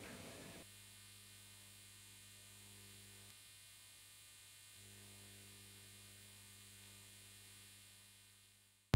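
Faint, steady electrical mains hum, a low drone with a higher overtone above it. A single short click comes just before the end.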